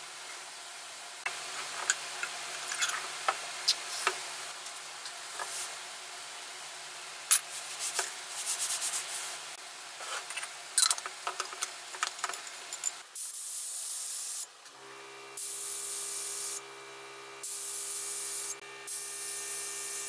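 Small metal clinks and rubbing as a spray gun's aluminium paint cup is handled and fitted. About thirteen seconds in, an air spray gun starts spraying primer in several hissing bursts of a second or so each, with a fan humming steadily behind.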